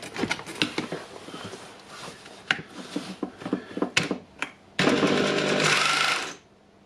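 Light handling clicks and knocks, then the freshly rebuilt Makita rotary hammer drill switches on about five seconds in, its motor and gearbox running loudly for about a second and a half before it cuts off suddenly: a first test run after reassembly.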